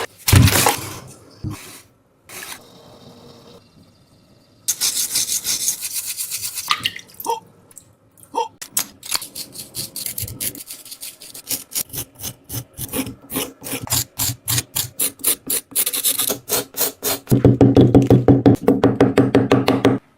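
Squishy toys being squeezed and pressed by hand, making a quick series of short squishing and clicking sounds, several a second, through most of the stretch.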